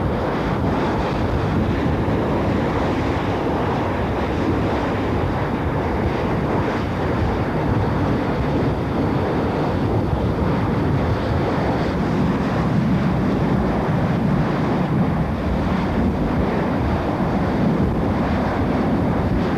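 Steady roar of an uncontrolled oil-field well blowing out, mixed with the rush of high-pressure water jets sprayed onto it to cool the wellhead.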